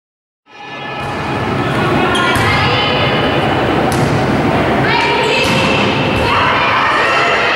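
Volleyball rally in a sports hall: players and spectators calling and shouting, with the thud of the ball being struck a few times. The sound starts about half a second in.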